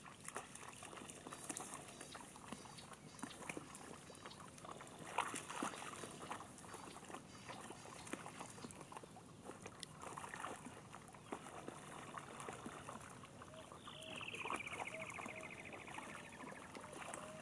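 Animals wading and splashing through a shallow muddy puddle, with scattered small splashes and clicks. About fourteen seconds in, a fast high trill falls slowly in pitch for about three seconds, with short soft chirps beneath it.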